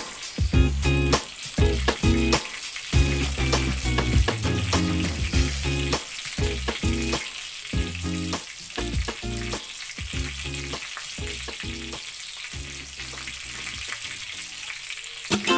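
Breaded chicken nuggets frying in hot oil: a steady sizzle full of crackles and sharp pops, a little quieter in the second half.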